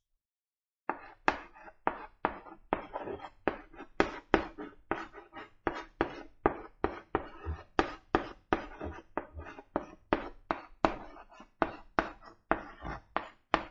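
White chalk writing on a blackboard: a quick, uneven run of chalk taps and short scratches, about three or four strokes a second, starting about a second in.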